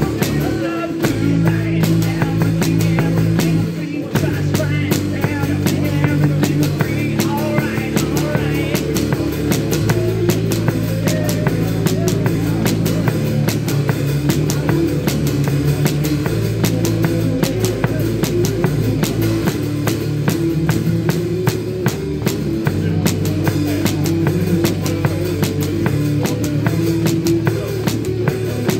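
Live rock music with a drum kit driving a steady beat, over a low bass line of held notes that changes every few seconds in a repeating pattern.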